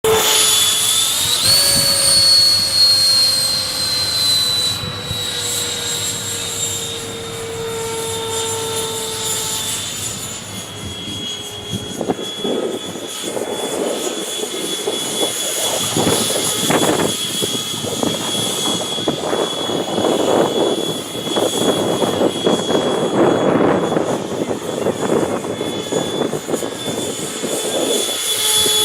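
64 mm eight-blade electric ducted fan, driven by a brushless motor, whining high and steady in flight on a radio-controlled model plane; it spools up sharply about a second and a half in, then its pitch drifts slowly lower. From about halfway on, strong gusting wind buffets the microphone over the whine.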